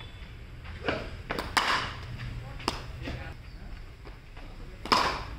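Sharp cracks and knocks of a cricket ball on bat and pitch in a practice net, four of them, the loudest about five seconds in, with a brief voice in between.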